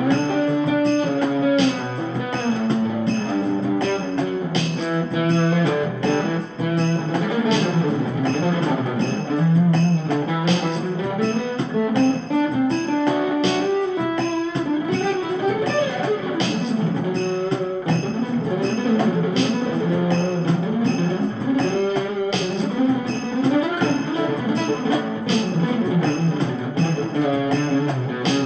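Instrumental background music: shifting melodic lines over a steady, evenly spaced beat.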